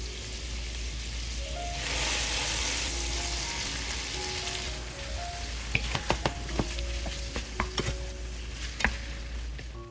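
Shrimp, garlic and chili sizzling in oil in a frying pan, strongest from about two seconds in. From about six seconds in, a run of sharp clicks and knocks as spaghetti is tossed in the pan with tongs and a wooden spatula. Soft background music plays underneath.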